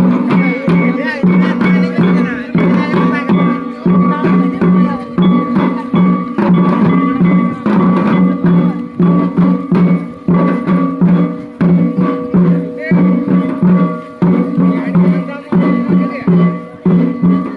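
Santali Dong folk dance music: hand drums beaten in a steady, even rhythm, with voices singing or calling over it.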